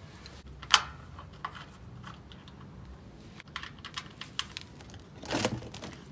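Metal clicks and clinks of a 21 mm drain plug being loosened with a wrench and unscrewed by hand from the oil strainer cover under an air-cooled VW Beetle engine. The clicks are scattered: a sharp one under a second in, a quick run of small ticks around four seconds, and a louder cluster near the end.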